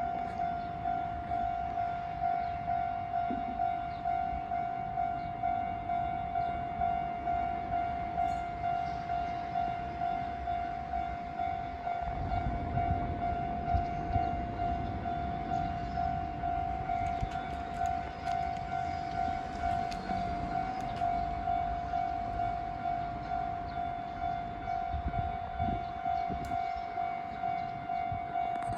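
Japanese railway level-crossing warning bell ringing continuously, an electronic tone pulsing in an even repeating beat. About twelve seconds in, a train's low rumble rises under it for a few seconds: the Kintetsu limited express passing through the crossing.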